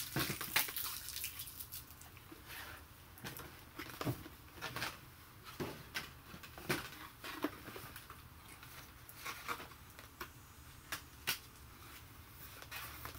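Scattered faint clicks and rustles of toy packaging being handled: plastic and cardboard pieces of a doll box being moved and turned over.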